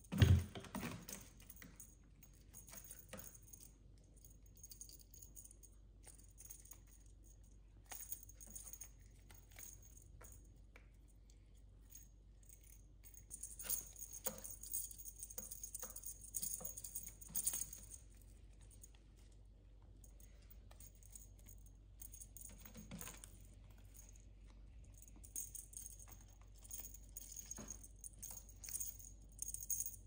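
A heavy thump right at the start as the cat leaps against the sisal-rope cat-tree post. Then bursts of light jingling and rattling from the feather wand toy's metal fittings as the cat wrestles it.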